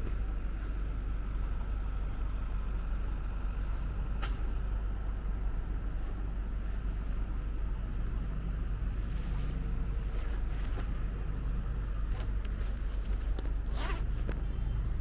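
Downtown street traffic, a steady low rumble of passing vehicles, with a brief sharp sound about four seconds in and a longer one near the end.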